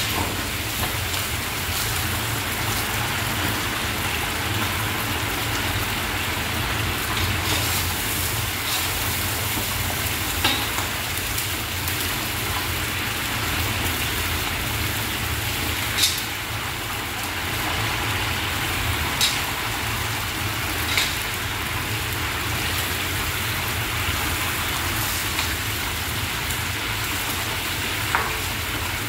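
Meat sizzling in hot oil in a large kazan for Uzbek plov, stirred with a long-handled skimmer that knocks sharply against the pot a few times, over a steady low rumble.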